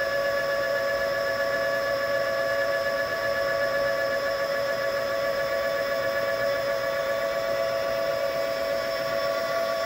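Steady whine and hum of a motor-generator rig running: a three-phase brushless motor on a high-voltage BLDC controller spinning a Ford F-150 alternator, with a modified sine wave inverter in the circuit. The pitch holds unchanged throughout.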